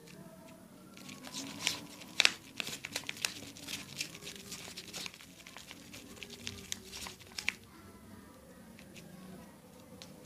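Foamy clay slime being stirred in a plastic container, a run of sharp crackling clicks and sticky snaps from about a second in to about seven and a half seconds in.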